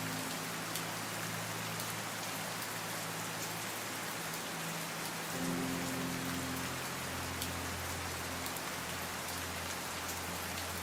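Steady rain falling, with scattered drop ticks, under soft sustained low chords of background music that shift to a new chord about five and a half seconds in.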